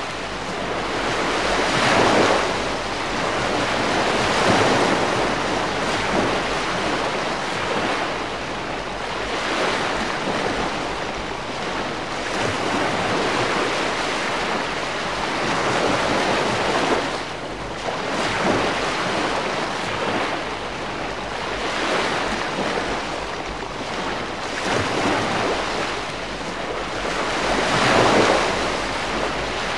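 Calm sea wash: small waves washing onto the shore and drawing back, a continuous rush of surf that swells and eases every few seconds.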